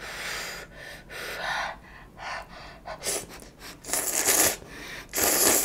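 Eating sounds close to the microphone as hot noodles and rice cakes are eaten: a string of short airy bursts of breath and slurping, the loudest two near the end.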